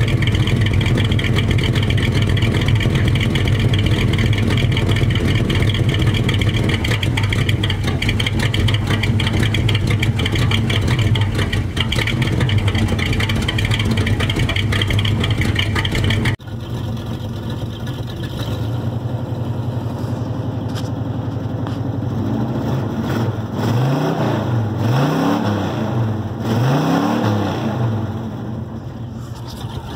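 1978 Chevy pickup's engine idling steadily after a cold start, heard from outside at the tailpipe. Then, heard from inside the cab, the throttle is blipped in three short revs near the end.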